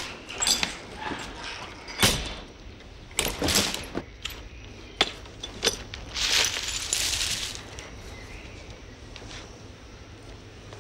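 Broken glass shards clinking and crunching as they are handled and stepped on: scattered short sharp clinks and knocks, with a longer rustling scrape about six seconds in.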